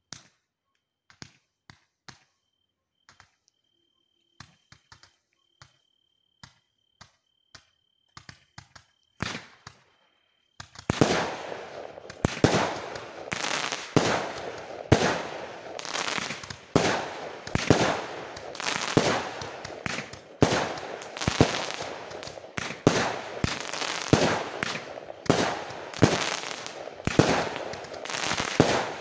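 Fireworks display: scattered faint pops for the first ten seconds, then from about eleven seconds in a dense barrage of aerial shell bursts, about two loud bangs a second over continuous crackling.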